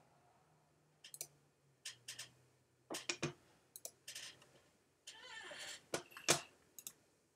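Quiet computer mouse clicks, about a dozen spread unevenly, several in quick pairs or triplets, with a short rustle about five seconds in.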